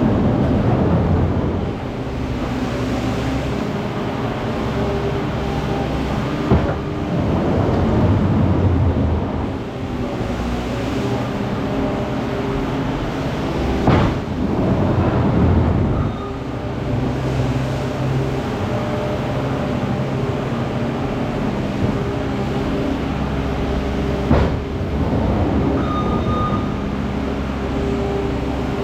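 Skid loader engine running and working under changing load, swelling and easing, with a few sharp knocks as the bucket scrapes frozen manure off the pen floor.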